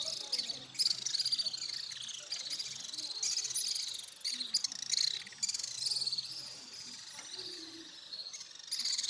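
Small birds chirping in quick, high trilling phrases that follow one another with short gaps, many of them falling in pitch.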